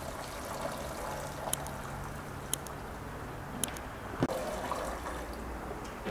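Tap water running and splashing over chopped greens being rinsed by hand in a stainless steel sink, with the wet leaves squeezed and stirred. A few sharp clicks come through it, the loudest about four seconds in.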